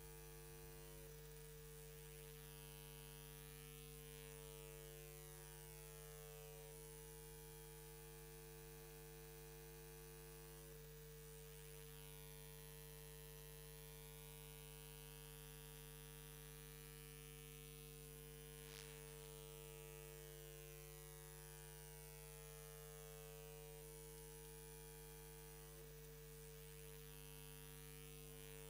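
Near silence with a faint, steady electrical mains hum. One faint tick about two-thirds of the way in.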